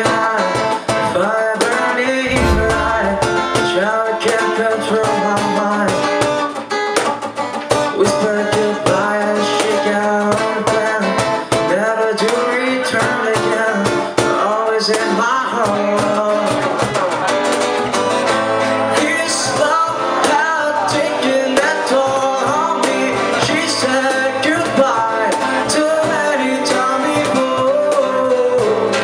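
Live band music led by guitar, with a singing voice, playing continuously.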